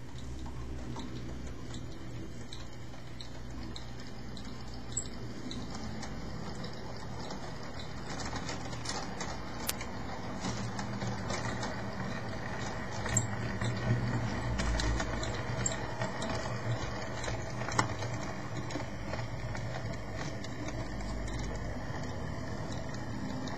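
OO gauge model Class 14 diesel locomotive running on the layout with its parcels train: a steady low motor hum with scattered sharp clicks from the wheels on the track, getting a little louder and busier about halfway through.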